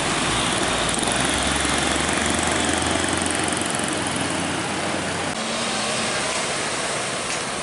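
Road traffic: a heavy truck's diesel engine running among motorcycle engines, with tyre and road noise. About five seconds in the sound changes abruptly as another truck comes toward the road's edge.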